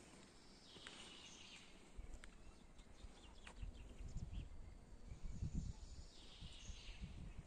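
Small birds chirping in short bursts, about a second in and again near the end, over faint low thuds and rumbling in the middle.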